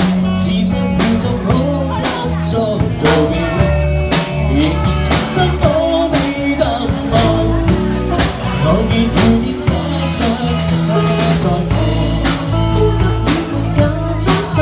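Live pop band playing with a singer's voice over drum kit, bass and guitar, the drums keeping a steady beat.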